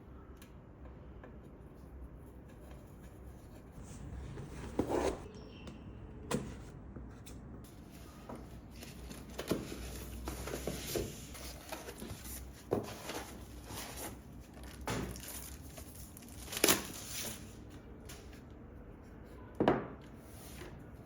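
Hands handling small hard parts and packaging: scattered clicks, knocks and rustling, with about seven sharper knocks a few seconds apart.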